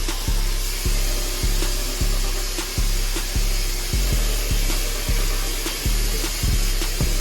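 Instrumental background beat with a heavy bass hit a little under twice a second, over a steady buzz from electric hair clippers or trimmers.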